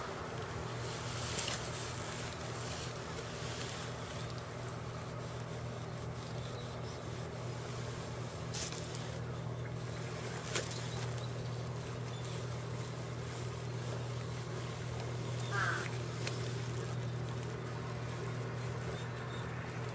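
Outdoor background with a steady low hum like a distant motor, a few faint clicks, and one short animal call about three-quarters of the way in.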